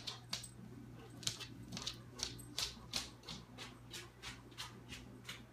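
Light, irregular ticks and taps on a wooden floor, about two or three a second, over a faint steady low hum.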